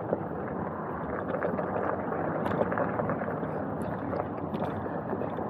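Himiway e-bike tyres rolling over a gravel trail: a steady rough crunching, with scattered small clicks of stones.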